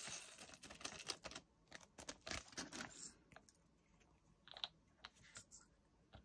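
Faint, scattered clicks and small rattles of clear plastic diamond-painting drill pots being handled, lids opened and fitted.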